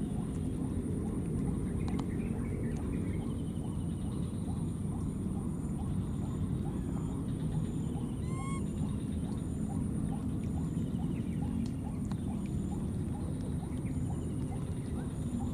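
Outdoor ambience: a steady low rumble with a constant high whine over it, faint chirps repeating a few times a second, and one short rising squeak about eight seconds in.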